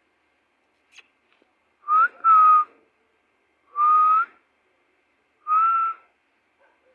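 Whistling: four short, steady notes at the same pitch, the first two close together and the others about a second and a half apart, each with a slight lift at its start.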